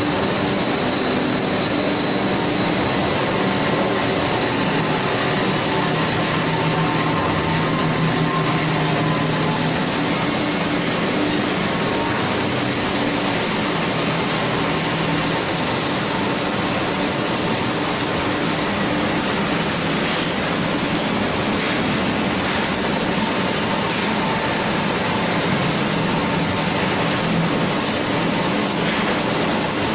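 Rotary drum wood shavings dryer and its conveyors running: a steady mechanical din of motors and moving machinery, with a few faint steady hums in it.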